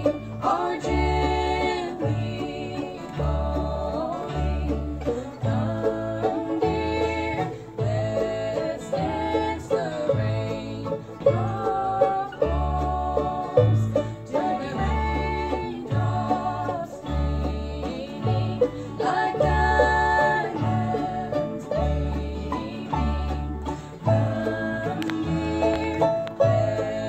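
Live bluegrass band playing: banjo, mandolin, fiddle, upright bass and acoustic guitar, with a low bass note about once a second, and two women singing.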